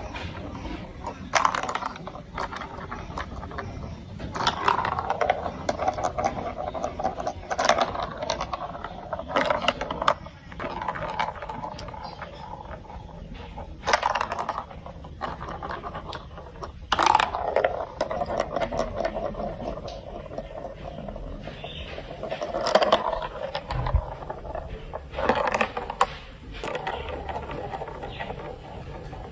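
Marbles rolling along a plastic building-block marble track, a continuous rolling rattle broken by frequent sharp clacks as they drop and hit the pieces.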